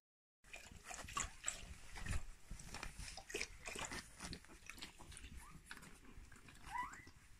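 Newborn husky puppies shuffling and rustling on a blanket with many small clicks and scuffs, and a brief rising squeak from a puppy near the end.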